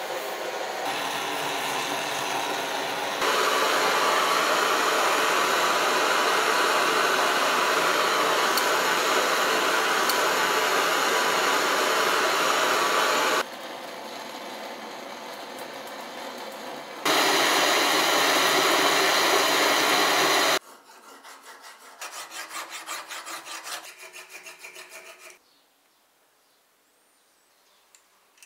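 Gas torch flame hissing steadily while heating a brass fitting on a sabre blade for soldering, in several stretches that change level abruptly. Then a few seconds of quick rhythmic rubbing strokes, and near silence near the end.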